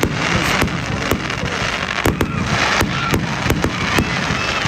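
Fireworks going off: a quick irregular string of sharp cracks and pops, several a second, over a steady crackling hiss.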